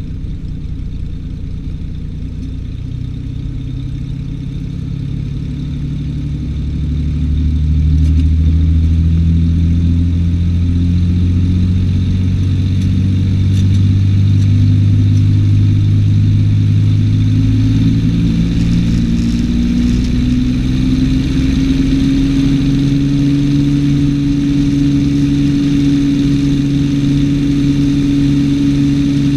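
Cessna 210's six-cylinder piston engine and propeller running, getting louder about seven seconds in, then rising in pitch around twenty seconds in and holding steady at the higher note as power comes up for takeoff.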